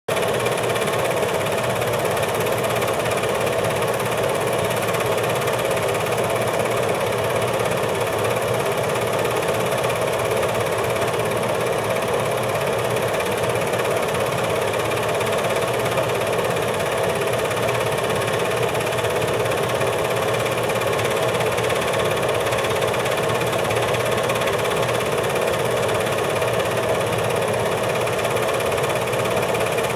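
8mm film projector running: a steady mechanical whir and clatter that does not change.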